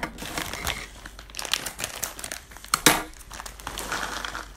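Thin plastic packet of peanuts crinkling as it is handled and tipped out into a plastic container, in irregular crackles with one sharp, loud crackle just before three seconds in.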